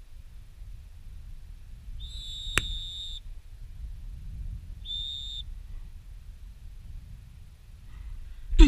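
Dog training whistle blown twice on one steady high note: a long blast of just over a second, with a sharp click partway through, then a short blast about three seconds later. Wind rumbles on the microphone throughout. Right at the end comes a brief, loud sound that falls steeply in pitch.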